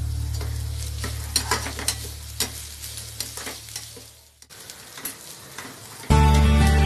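Sliced onions sizzling in hot oil in a steel frying pan, stirred with a spatula that scrapes and clicks against the pan. Background music fades out over the first few seconds, and louder music starts abruptly near the end.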